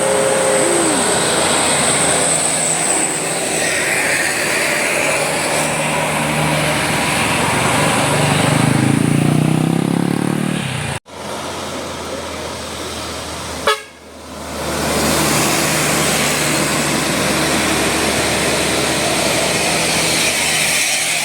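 Indonesian bus 'telolet basuri' melody horn sounding over loud road and engine noise, at one point playing a quick run of climbing notes. The sound cuts off abruptly twice, as between clips.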